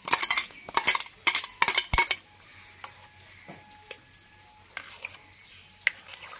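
A spoon clinking and scraping against a bowl while paste is stirred into beaten sour yogurt: a quick run of clinks over the first two seconds, then a few single clicks.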